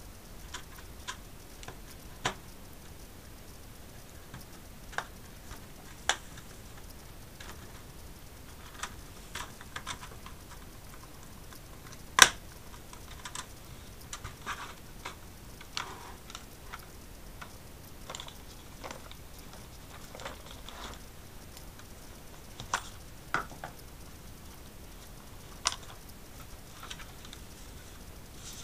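Irregular sharp plastic clicks and snaps from a plastic card being pried along the seam of a Seagate Central network drive's plastic case as its clips are worked loose, with one louder snap about twelve seconds in.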